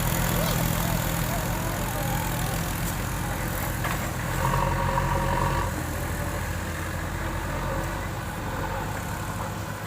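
Heavy diesel engine of a working earthmoving machine or tractor running steadily, with a brief higher whine about halfway through.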